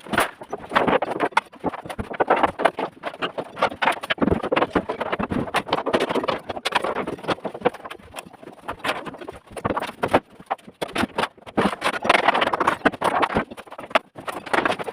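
Irregular knocks and clatter, typical of wooden formwork boards and props being knocked loose and handled while a concrete slab's formwork is stripped.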